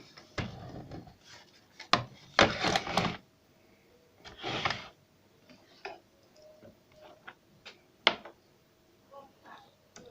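Irregular clicks, taps and short scraping rustles of small parts and tools being handled during repair work. The longest scraping bursts come about two and a half and four and a half seconds in, with a sharp click near eight seconds.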